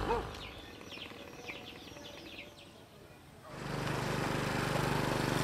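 Birds chirping in short, quick falling calls over a quiet background. About three and a half seconds in, the steady hum of a small step-through motorbike engine comes in and slowly grows louder.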